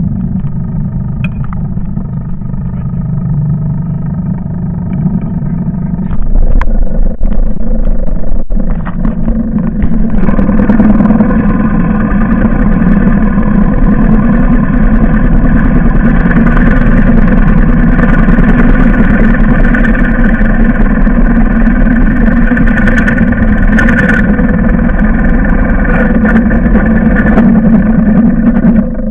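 Engine of demonstrated farm machinery running steadily. It gets louder about six seconds in and again about ten seconds in, as if working harder or coming closer.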